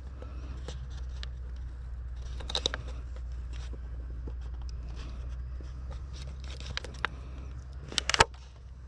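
Close handling sounds of monofilament fishing line being cut and tied to a plastic bottle: scattered small clicks and scrapes, with a louder short burst about two and a half seconds in and another near the end, over a steady low rumble.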